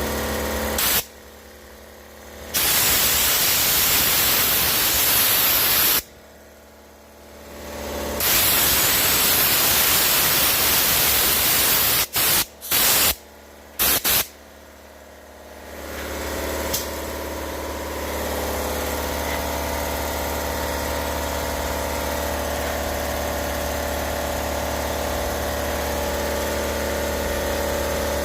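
Bursts of hissing spray, from cleaning the engine block before the head gaskets go on: one short blast, two long blasts of several seconds, then three quick short ones. After that a steady machine hum with a constant drone.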